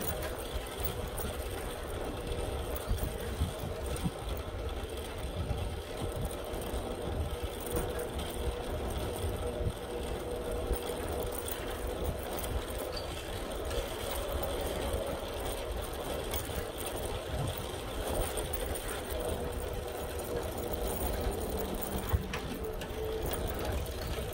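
Bicycle riding noise: a constant, uneven low rumble with a steady faint whine running through it.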